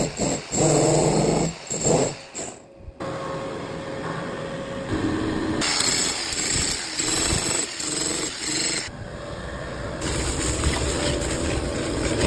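Rotary hammer chiselling into a concrete floor, a steady rattling hammering that gets louder in two stretches. Before it, about two seconds of low pulsing sound that breaks off abruptly.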